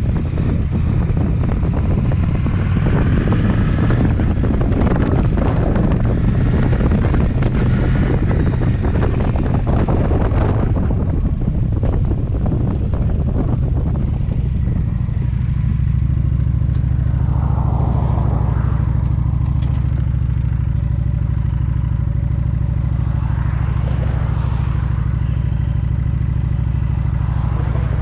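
Motorcycle being ridden: engine running under a heavy rush of wind over the microphone for about the first ten seconds, then the wind drops away and the engine settles to a steady idle or slow roll, starting to rev up again at the very end.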